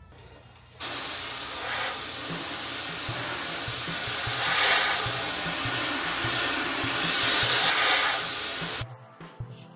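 Compressed-air paint spray gun spraying in one continuous pull of about eight seconds: a loud, even hiss that starts and stops abruptly, swelling slightly twice.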